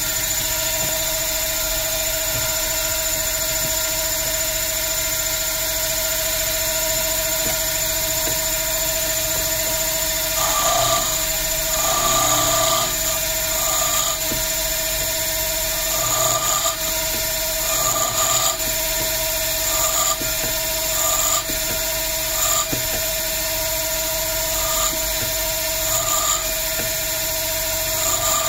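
A small lathe motor runs steadily with a constant whine as it spins a carbon fiber cue shaft. From about ten seconds in, a hand-held cutter is pressed against the spinning layered leather tip in short passes every second or two, adding a brief, louder scraping each time.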